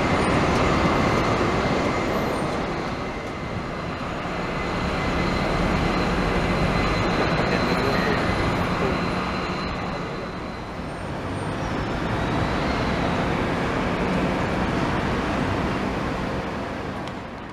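Jet airliner engines running on an airport apron: a steady rush of noise with a thin high whine through the first half, swelling and easing slowly, and fading out at the very end.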